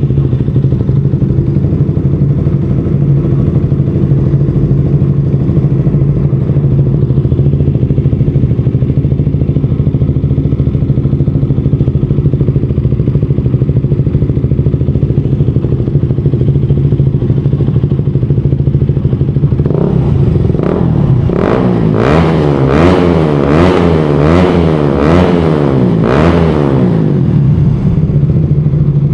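KTM RC single-cylinder motorcycle engine idling through an aftermarket exhaust. About twenty seconds in, the throttle is blipped quickly, with seven or eight short revs over some seven seconds, before the engine settles back to idle.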